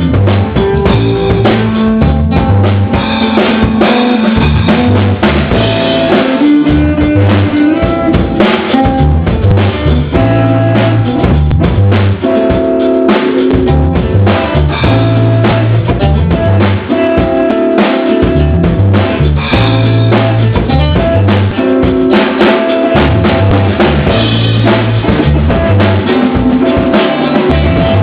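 Loud music with a drum kit and a bass line keeping a steady beat, without singing.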